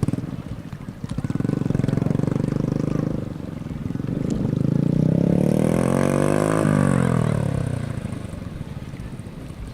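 Vehicle engines running nearby, with one passing close by: its pitch rises as it approaches and drops sharply as it goes past, about seven seconds in.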